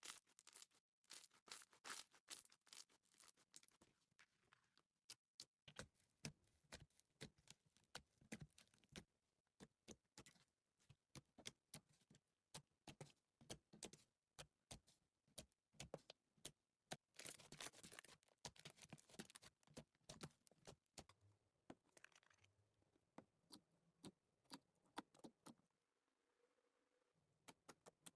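Faint, irregular sticky clicks and crackles of slime being squished and worked by hand, with a denser patch of crackling about two-thirds of the way through.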